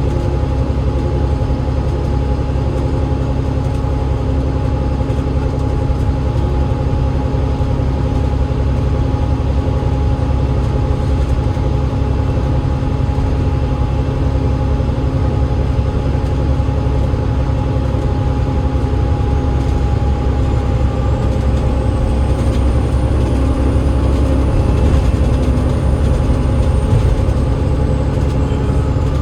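Cummins ISL8.9 straight-six diesel and drivetrain of an Alexander Dennis Enviro500 MMC double-decker bus, a steady low rumble with a faint steady hum. A faint high whine rises and falls in the last third.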